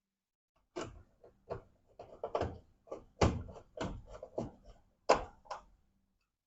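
A rapid, irregular run of knocks and clatters of hard objects being handled, the loudest about three and five seconds in.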